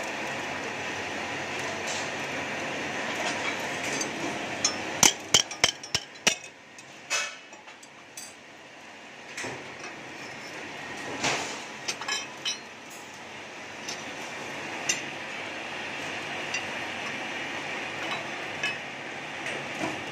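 Sharp metal clinks and knocks as a freshly bent flat-steel pole-mounting clamp is worked out of the steel bending die and set down on the steel press bed. A quick run of knocks comes about five to six and a half seconds in, then scattered single ones, over steady machine noise.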